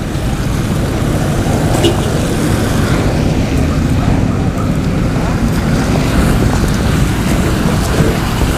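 SUVs running and driving off across the lot, a steady low rumble of engines and tyres, mixed with wind buffeting the phone's microphone.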